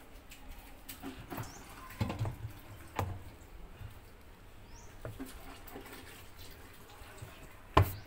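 Scattered soft knocks and rubbing from a hand working a front-loading washing machine's rubber door seal, with one sharp knock just before the end.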